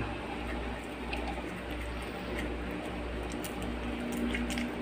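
Hands handling a wet raw whole chicken and pushing lemongrass into its cavity, with a few faint small clicks over a steady low hum.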